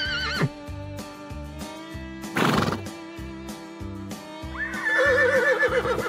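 Recorded horse neighs laid over background music with a steady beat. A wavering neigh ends just after the start, a short breathy blow comes about two and a half seconds in, and a long, loud, quavering whinny begins about four and a half seconds in.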